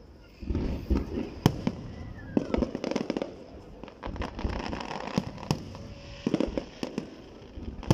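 Aerial fireworks bursting: an irregular run of bangs and crackling starts about half a second in, with a few sharp single reports standing out over a low rumble.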